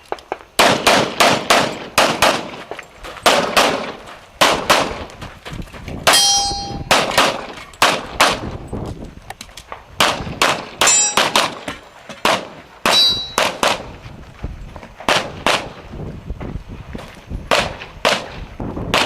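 Rapid pistol fire during an action-shooting course of fire: dozens of shots, many in quick pairs, broken by short pauses. A few hits set steel targets ringing, about 6, 11 and 13 seconds in.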